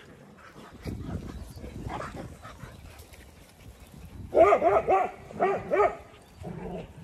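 Dogs playing and chasing; about four seconds in, a dog barks in two quick bursts of short, sharp barks, about seven in two seconds.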